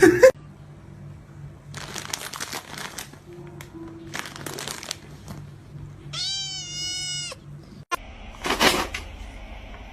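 A cat meowing once, a long drawn-out call about six seconds in, among a few short noisy bursts.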